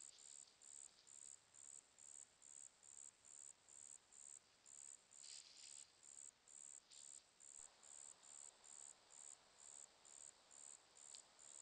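An insect chirping steadily, high-pitched, about three short chirps a second.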